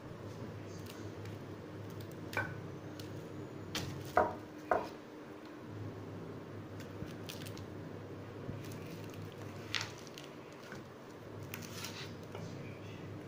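Homemade concrete weight plates being handled, with a few short hard knocks and taps as they are touched and lifted. The loudest two come about four seconds in, over a steady low hum.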